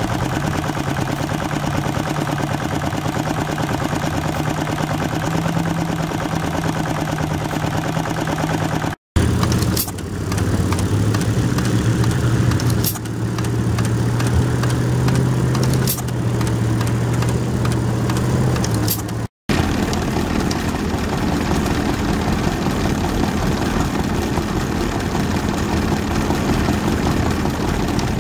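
Vintage stationary engines running steadily, heard as three separate engines in turn with abrupt cuts between them about a third and two-thirds of the way through. The middle one is the loudest and has a few sharp clicks.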